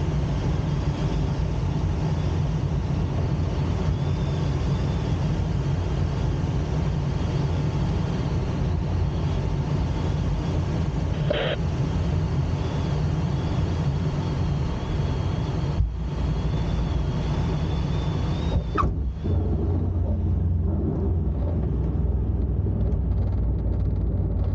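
Steady low rumble inside a glider's cockpit as it lands and rolls along the ground: airflow with the main wheel running over the surface. About 19 seconds in there is a brief falling squeak, and the rumble turns deeper with less hiss.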